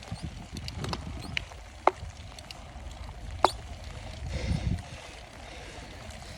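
Wind rumbling on the microphone of a moving bicycle, with a few sharp clicks, the loudest about two and three and a half seconds in.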